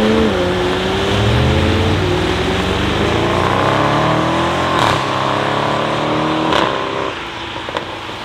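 Cars accelerating hard away on a wet road, with the McLaren 720S's twin-turbo V8 and the Audi estate following behind it. The engine note climbs and drops back at each upshift, with a sharp crack on two of the shifts, over a steady hiss of tyres on wet tarmac. The sound fades after about seven seconds.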